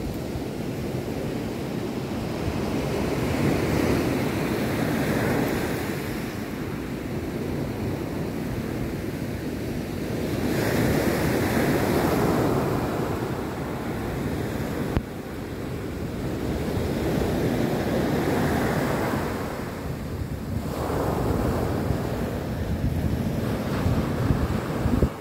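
Sea waves breaking and washing up a pebbly beach, the surf swelling and fading about four times, every six or seven seconds, with wind buffeting the microphone.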